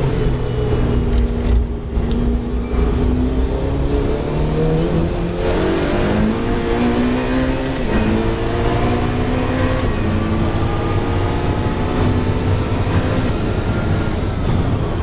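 Ferrari 488 Challenge race car's twin-turbo V8 accelerating hard, its pitch climbing through the gears with quick upshifts about every two seconds. Near the end the driver lifts off and the engine note falls away.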